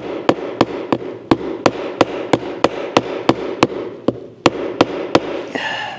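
Rapid light hammer taps, about three a second with a short pause near the end, knocking the roll-up window's frame and glass into place until it is tight and centered.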